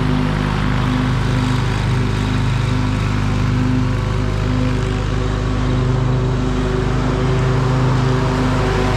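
Riding lawn mower's engine running steadily at a constant speed.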